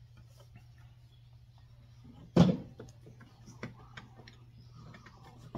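Small clicks and handling noises from hands working wire connectors on a compressor, with one sharp knock about two and a half seconds in and a couple of lighter knocks later, over a low steady hum.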